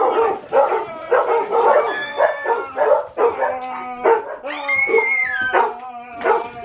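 Several household dogs barking and yipping in excited alarm at a man grabbing family members, with a long high-pitched falling cry about five seconds in.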